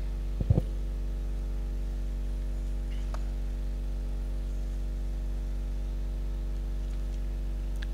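Steady electrical mains hum from the microphone and sound system, a low drone with overtones, with a brief soft knock about half a second in.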